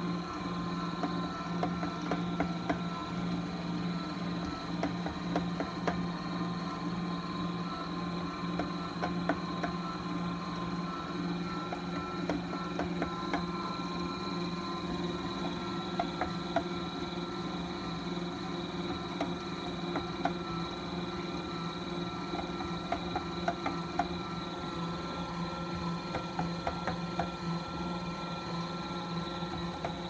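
Haussler dough mixer running as it kneads dough in its steel bowl: a steady motor hum with light, irregular clicks and knocks.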